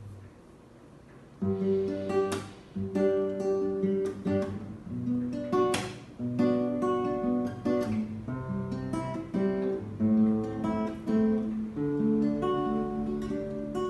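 Acoustic guitar strumming chords as the instrumental introduction to a worship song, coming in about a second and a half in.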